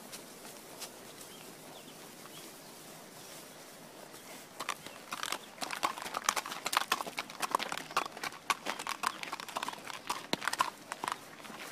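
Horse's hooves clip-clopping in a rapid, uneven clatter that starts about four and a half seconds in and stops shortly before the end.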